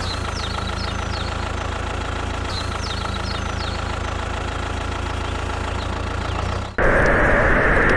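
An engine idling steadily with an even low drone. About seven seconds in, it cuts off abruptly and a louder, steady rushing noise takes over.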